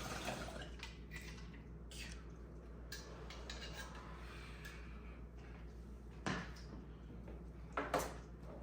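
Scattered light clicks and knocks of small objects being handled, with a few sharper knocks near the end.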